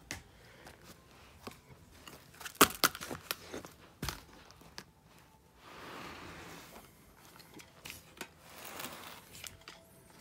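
Handling noise from a leather championship belt with metal plates being turned over and moved on carpet: a run of clicks and knocks a little under three seconds in, one more knock about a second later, then two spells of soft rustling.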